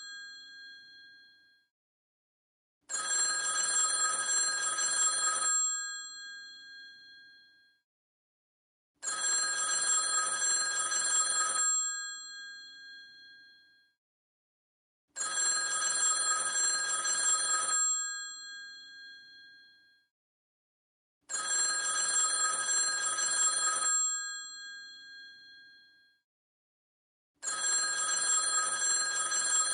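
An old telephone's bell ringing in bursts of about two and a half seconds, one starting every six seconds. There are five rings, each fading out with a ringing tail before silence.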